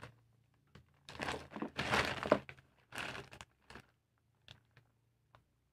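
Clear plastic wrapping and a paper envelope crinkling and rustling as they are pulled open and handled, in three bursts, followed by a few light taps.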